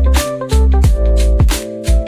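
Background music with a steady beat: drums, deep bass and sustained keyboard-like chords.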